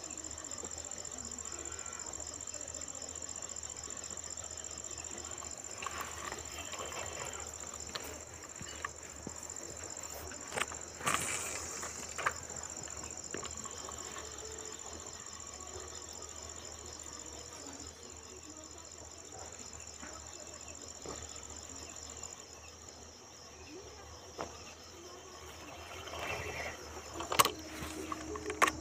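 Steady high-pitched chirring of an insect chorus, which fades about three-quarters of the way through. A few short knocks and rustles break in, the loudest near the end.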